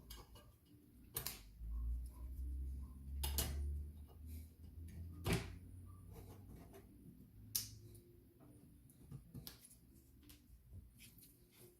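Scattered sharp clicks and light knocks of small objects being handled, with a low rumble from about two to four seconds in.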